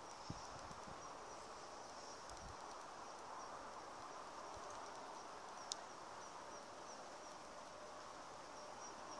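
Faint outdoor ambience: insects chirring steadily at a high pitch over a soft even hiss. There is a soft bump near the start and one sharp click about two-thirds of the way through.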